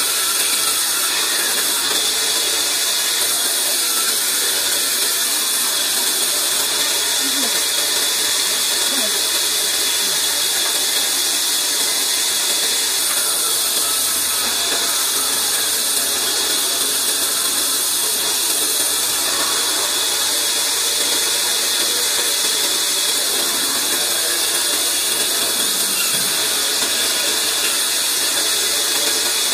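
Large vertical band saw running steadily as wooden boards are fed through its blade and ripped lengthwise: a continuous, even sawing noise with no pauses.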